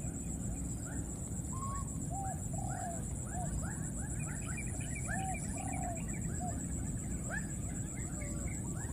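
Baby macaques calling over and over, mixing short arched coos with quick rising squeaks.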